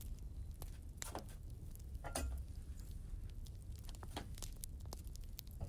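Scattered light clicks, taps and brief rustles of small objects being handled, over a steady low rumble.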